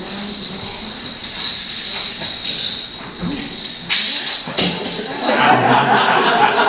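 Small jingle bells shaken steadily, with two sharp knocks about four seconds in and a rustling clatter near the end.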